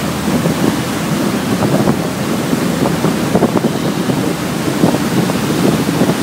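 Wind buffeting the microphone on a moving ferry's deck, over the rush of churned water along the hull. The noise is loud and gusty.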